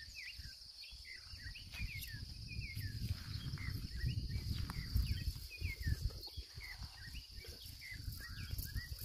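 Steady high-pitched insect drone with many short bird chirps scattered through, several a second at times, over a low, uneven rumble.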